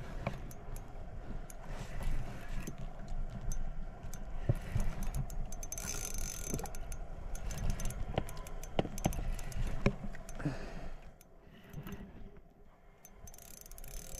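Scattered mechanical clicks and light rattles over a low steady rumble, dropping quieter about eleven seconds in.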